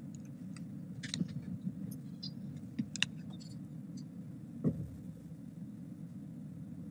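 Steady low room hum, with a scatter of light clicks and taps in the first half and a single soft knock a little after halfway.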